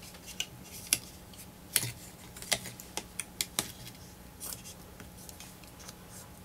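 Aluminum foil shielding tape crinkling and crackling as it is wrapped and pressed by hand around a cluster of capacitors: a dozen or so scattered sharp crinkles.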